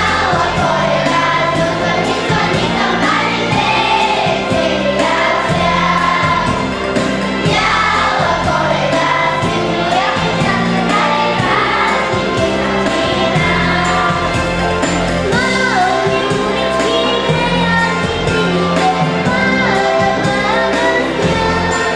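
A children's choir singing with instrumental backing.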